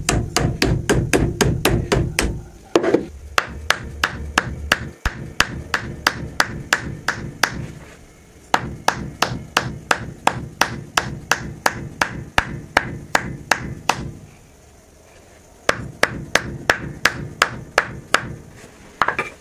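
Mallet striking the top of a hatchet's head, where the wooden handle and glued wedge sit in the eye, in quick even blows of about three to four a second. The blows come in several runs with short pauses. This is the head being driven down onto the handle.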